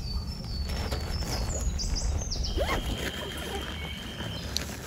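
Outdoor ambience of birds chirping, with short high whistled notes and one longer held note midway, over a steady low rumble.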